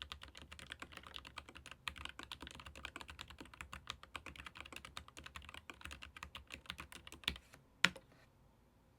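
Fast typing on a Keychron K15 Pro Max low-profile mechanical keyboard with Gateron low-profile red linear switches, a quick run of key clicks. The typing stops near the end with two louder clacks about half a second apart.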